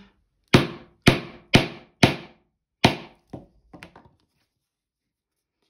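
A mallet striking a metal rivet setting tool five times, about half a second apart, followed by a few lighter knocks, setting a double cap rivet by hand on an anvil.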